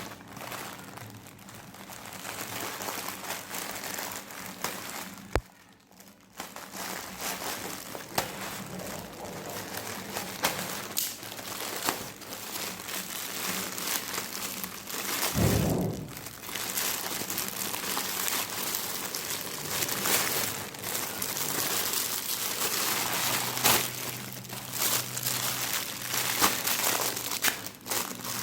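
Plastic packaging crinkling and rustling as it is handled and opened, with many sharp crackles and clicks, and a short lull about five seconds in.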